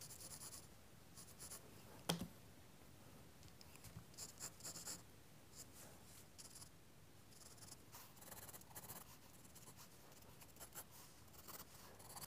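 Faint scratching of a graphite pencil on sketching paper in short, irregular strokes, with a single light tap about two seconds in.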